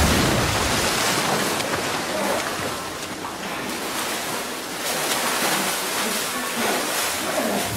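Pool water splashing continuously as a swimmer thrashes through it, loudest right at the start.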